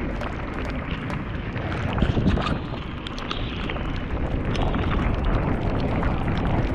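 Wind buffeting the camera's microphone as an enduro mountain bike descends fast on a wet trail, with a steady low rumble from the tyres and frame and many scattered sharp clicks and knocks from the bike rattling over rough ground.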